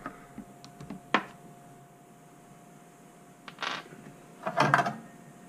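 A sharp click about a second in, then a short rustle and a quick cluster of knocks near the end, the small sounds of hands handling things at a desk, over a faint steady hum.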